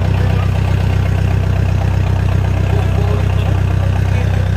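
Ford Everest SUV's engine idling steadily through an aftermarket dual-tip exhaust, a low, even drone.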